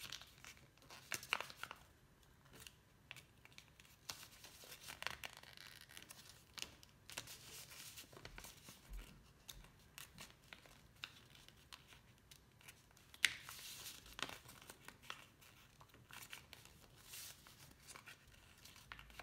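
A sheet of paper being folded and creased by hand: faint, intermittent rustling and crinkling as the corners are folded in and pressed flat, with one sharper crackle of a crease about two-thirds of the way through.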